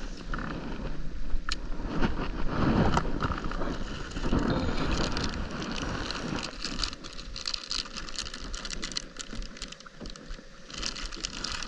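Rain falling on a kayak and the water around it, a steady hiss with many small drop ticks that grow denser in the second half.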